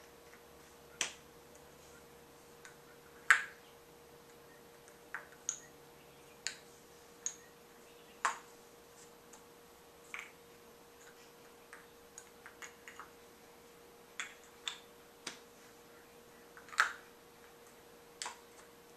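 Irregular light clicks and taps of small toy parts handled in a child's hands, about twenty scattered through the stretch, the sharpest about three seconds in and near the end. A faint steady hum runs underneath.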